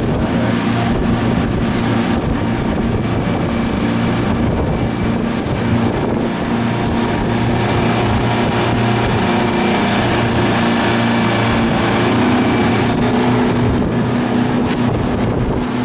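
Yamaha outboard motor running steadily at speed, a constant drone, with wind buffeting the microphone and rushing spray and water noise over it.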